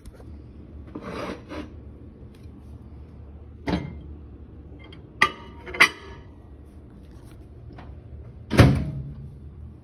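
A ceramic plate is set into a microwave oven: a soft scrape, a knock, then two sharp ringing clinks of the plate against the glass turntable. Near the end comes a louder thump as the microwave door shuts.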